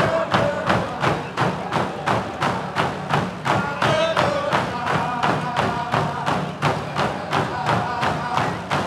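Dene hand drums beaten together in a steady beat, about three strokes a second, with a group of voices singing a drum-dance song over them.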